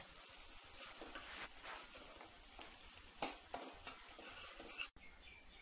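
Chopped onions and ginger-garlic paste frying in butter and oil in a kadai, with a faint steady sizzle. A steel ladle stirs and scrapes against the pan, with a few louder scrapes around three to four seconds in.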